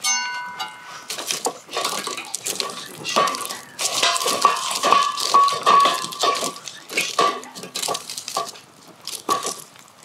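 Metal cookware and utensils clinking and clattering as pans are handled, with a brief bright ring at the very start.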